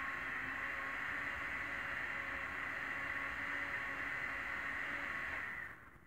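Countertop blender motor running steadily with a whine as it blends a purple liquid, then switched off, cutting out suddenly near the end.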